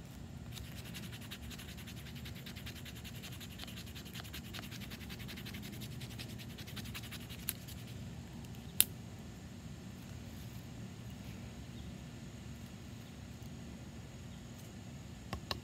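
A knife scraped rapidly along a ferro rod over wood shavings, striking for sparks to light a fire, for about seven seconds; a single sharp click comes about nine seconds in.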